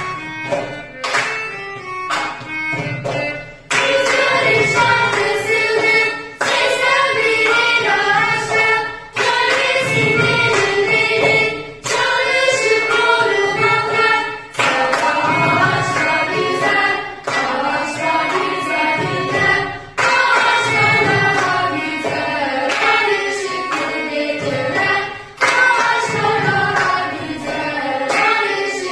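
A girl singing a song over musical accompaniment with a regular low beat.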